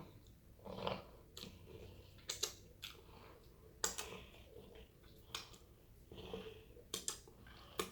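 Close-up eating sounds: chewing with scattered sharp mouth clicks and smacks at irregular intervals.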